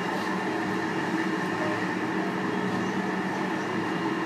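A JR Hokkaido 735 series electric train running at speed, heard from inside the car: an even running noise with several steady humming tones.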